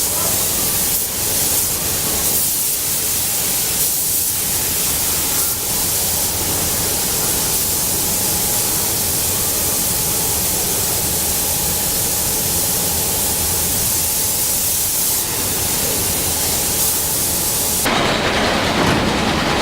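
Steady, loud hissing noise on a car-factory production line, like rushing air or spraying. About 18 s in, it shifts to a lower, coarser rush.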